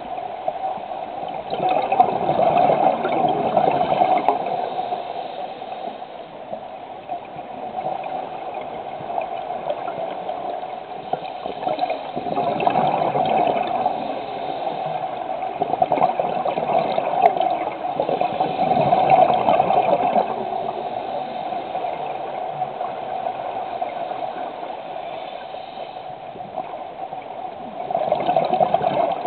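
Scuba divers' exhaled bubbles gurgling and rumbling underwater, swelling in surges every several seconds over a steady wash of water noise.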